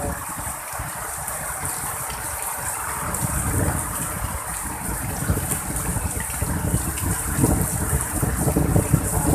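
Heavy rain pouring down in strong wind: a steady rushing hiss, with gusty low rumbling of wind on the microphone that grows stronger in the second half.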